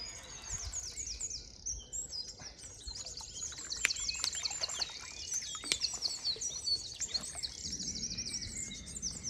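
Dawn chorus: many songbirds singing at once, a dense, unbroken run of high chirps and trills. A few sharp clicks stand out against it.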